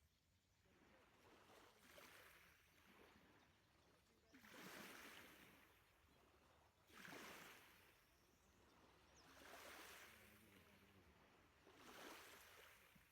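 Faint lake water lapping, a soft wash swelling and fading about every two to three seconds.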